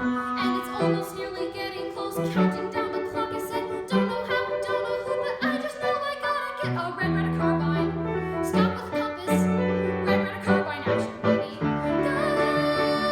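Piano-led show-tune accompaniment music, with a fuller bass line coming in about seven seconds in.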